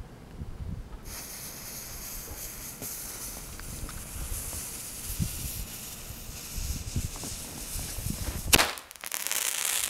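Consumer firework hissing steadily from about a second in, then a single sharp bang near the end followed by more hissing.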